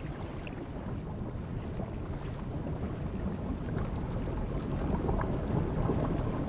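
Water sloshing and splashing, growing slowly louder, as a group of pelicans fish together on open water.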